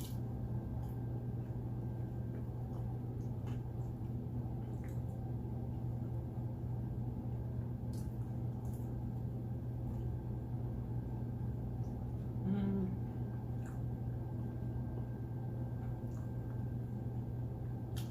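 Steady low room hum with faint, scattered clicks of a person chewing and eating, and a brief hummed voice sound about twelve seconds in.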